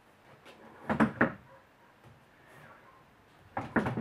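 Old swivel stool's seat turned and rocked by hand on its metal stem, giving two clusters of quick clunks and knocks, about a second in and again near the end.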